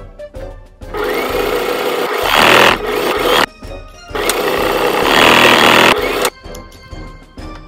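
Electric sewing machine running in two bursts of stitching through cotton fabric, each about two and a half seconds long and getting louder partway through, with a short pause between them.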